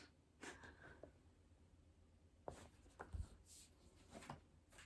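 Near silence: room tone with a few faint, short clicks and taps, one with a soft low thump about three seconds in.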